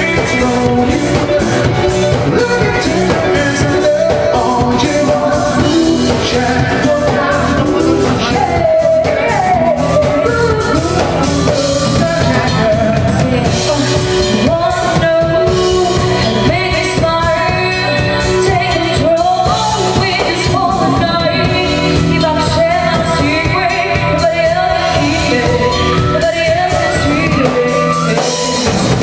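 A live band playing a song: singing over drums, electric guitars and keyboard, with a steady drum beat, heard through a camera's microphone.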